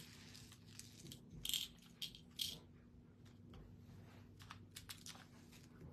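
Faint clicks and rattles of small clear plastic containers of diamond-painting drills being handled and set down on the table. There are a few louder clicks about a second and a half, two and two and a half seconds in, and a quick run of light clicks near the end.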